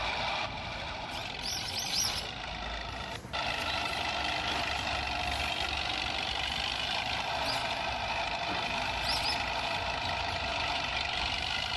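A steady mechanical running sound, like a vehicle's motor, with short high chirps now and then.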